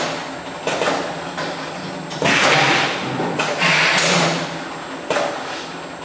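Metal pail lid crimping machine with its conveyor running: a steady low hum and faint high whine, broken about four times, roughly every one and a half seconds, by a sudden clank and a rush of noise that dies away over about a second, as the crimper cycles and metal pails move through.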